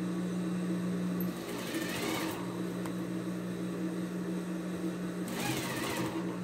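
Electric sewing machine running steadily, its motor humming evenly as it stitches, with a slight change in its note about a second in and again near the end.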